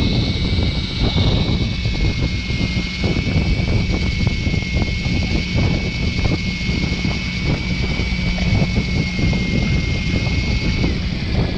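Steady rumble of the fishing boat's engine, with the high, even whine of an electric fishing reel winding in line. The whine drops in pitch and stops about eleven seconds in, as the rig nears the surface.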